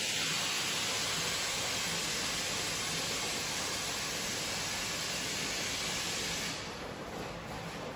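Steady hiss of water running and bubbling in a koi aquarium, typical of its filter return and aeration. It eases a little about six and a half seconds in.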